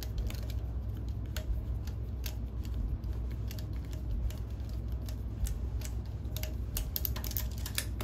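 Phillips screwdriver unscrewing the metal bracket screws that couple a glycol pump to its motor: a string of small, irregular metallic clicks over a low steady hum.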